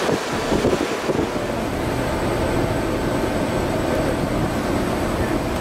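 Steady rush of wind and sea beside a ship under way, with wind buffeting the microphone.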